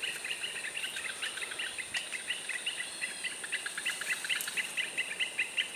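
Outdoor insect and bird chorus: a steady high insect hum under a rapid, continuous run of short chirps, about eight a second.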